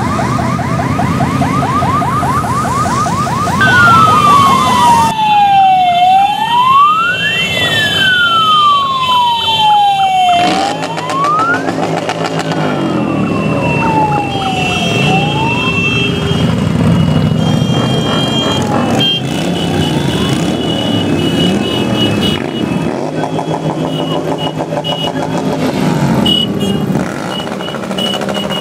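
Siren from the lead car's roof loudspeaker: a fast warbling yelp that changes about three and a half seconds in to a slower wail, sweeping down and up in pitch every few seconds, then stops. After that, the engines of a column of motorcycles riding past carry on.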